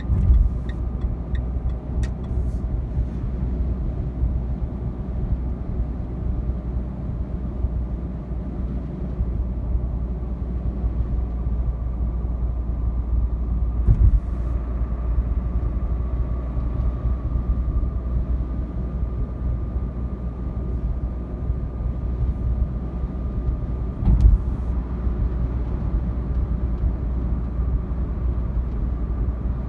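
Steady in-cabin drone of a Renault Clio IV's 1.5-litre dCi diesel engine and tyre noise while cruising on an expressway, with a faint steady whine running through it. Two brief thumps break in, about 14 and 24 seconds in.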